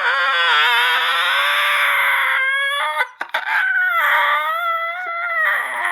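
A person's loud, high-pitched, drawn-out wailing cries, with a short broken-up gap about halfway through.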